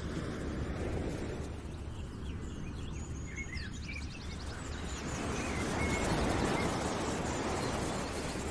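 Steady outdoor background noise with scattered short bird chirps and a brief fast trill near the middle.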